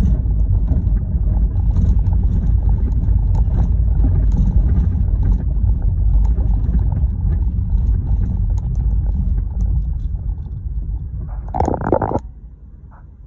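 Low rumble of a vehicle driving over a rough dirt and gravel road, heard from inside the cab, with scattered small clicks. Near the end there is a brief louder noise, then the rumble drops away as the vehicle comes to a stop.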